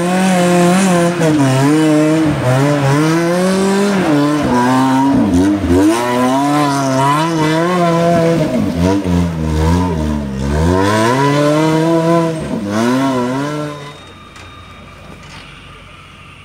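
Off-road competition 4x4's engine revving hard as it climbs a steep dirt slope with its wheels spinning in loose soil, the pitch rising and falling again and again as the throttle is worked. The sound drops away sharply near the end.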